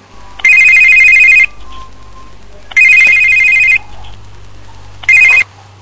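Wall-mounted landline telephone ringing with an electronic trill: three rings of about a second each, the third cut short about five seconds in as the phone is answered.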